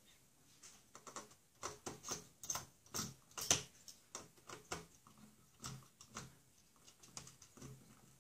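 Small Phillips screwdriver turning screws into a laptop's hinge: a run of light, irregular clicks and scrapes of metal on metal and plastic.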